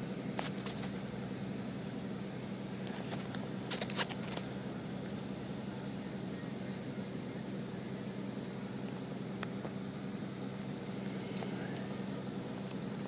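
Komatsu PC400 excavator's diesel engine running with a steady hum, with a few short clicks, the sharpest about four seconds in.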